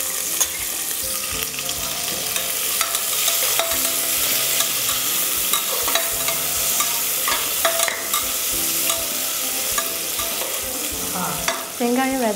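Sliced onions sizzling as they fry in hot oil in an aluminium pressure cooker, stirred with a slotted metal ladle. The sizzle is a steady hiss, broken by frequent clicks and scrapes of the ladle against the pot.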